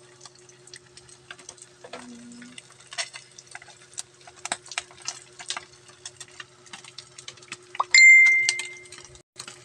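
Oarfish pieces frying in oil in a nonstick pan, crackling with irregular pops over a low steady hum. About eight seconds in, a brief high steady tone sounds for about a second; it is the loudest sound.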